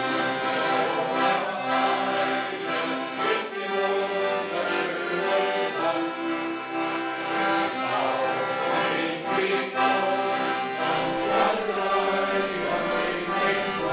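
Piano accordion playing a folk-song tune in full, steady chords, without a break.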